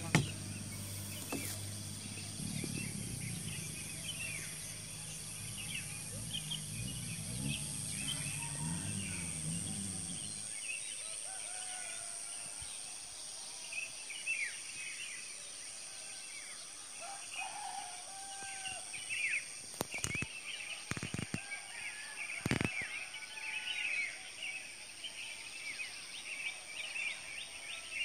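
Many small birds chirping and twittering over a steady high-pitched insect drone. A low rumble underneath cuts off about ten seconds in, and there are a few sharp knocks about twenty seconds in.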